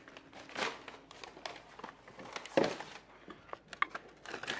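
Faint handling noise of someone moving about and handling things: scattered light knocks and rustles, with one louder knock about two and a half seconds in.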